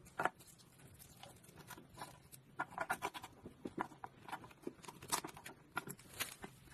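Faint, irregular small clicks and taps of a steering-wheel clock spring's plastic housing being handled and fitted into place.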